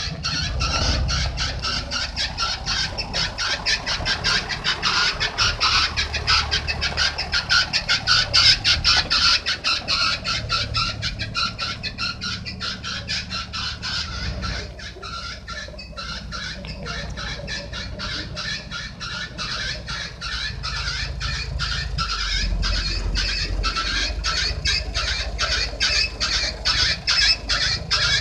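Saviem S53M bus's diesel engine running as the bus is driven slowly into place, a low rumble under a fast ticking clatter.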